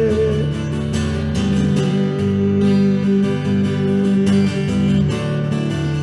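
Worship band music: the singer's held last note ends just after the start, then a strummed acoustic guitar carries on over steady sustained chords.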